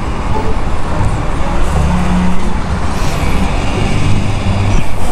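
Loud, steady rumble of road traffic and vehicle noise, heaviest in the low end, with no single engine note standing out.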